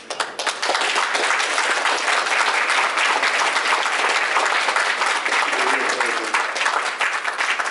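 Audience applauding: many hands clapping together at a steady level, starting suddenly.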